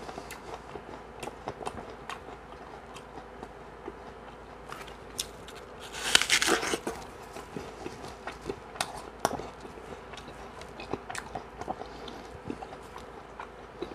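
A person biting into a crisp apple with one loud crunch about six seconds in, then chewing it, with small crunching clicks scattered before and after.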